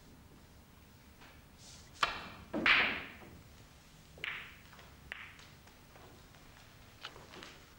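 Snooker balls clacking on a table: a sharp cue strike on the cue ball about two seconds in, a louder knock as it hits other balls half a second later, then a few lighter ball-on-ball clicks.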